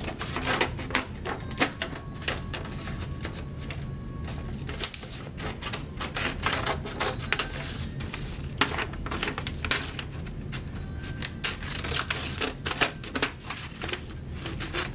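Wooden popsicle sticks being cut: a long run of irregular sharp clicks and cracks.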